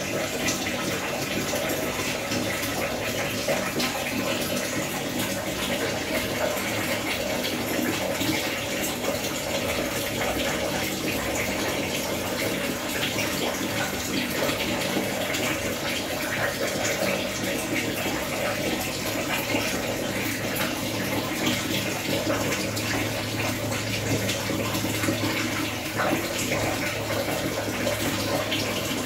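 Steady rush of running water, an even hiss that neither rises nor falls.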